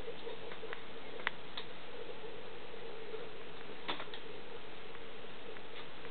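A few light, sharp ticks and taps at irregular spacing, the loudest about a second in: a kitten's paws and claws on a cardboard box, over a steady background hiss.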